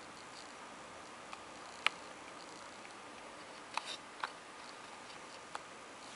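Faint steady hiss with a few scattered small clicks: one sharp click about two seconds in, a quick cluster of three around the four-second mark, and a last one near the end.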